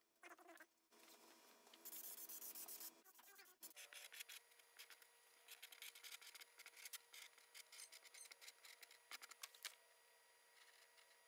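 Faint scraping and rubbing in many quick, irregular strokes.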